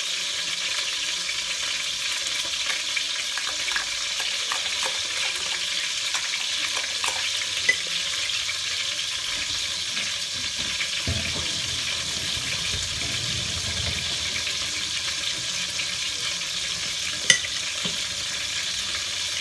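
Veal roast cooking in oil in a steel pot on a gas stove, sizzling steadily. Two short, sharp clinks, one about eight seconds in and one near the end, come from a utensil on a small glass bowl as canned tuna is stirred and mashed for the sauce.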